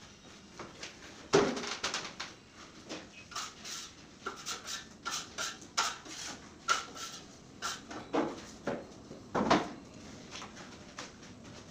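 Irregular knocks, clatters and short scrapes from work tools and materials being handled on a work platform, with two louder knocks, one about a second and a half in and one near the end.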